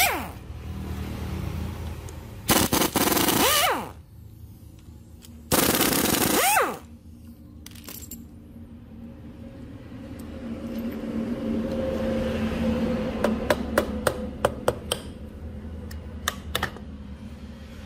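Impact wrench rattling in two bursts of about a second each, undoing the two valve-cover bolts on a scooter engine's cylinder head. Near the end, a quick run of sharp metal clicks and taps as the cover is handled.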